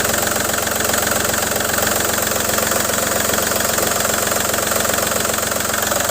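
Car engine idling steadily with its serpentine belt wetted with Coca-Cola, running without a belt squeal. The noise going away with the cola points to a worn belt rather than the tensioner or idler pulleys.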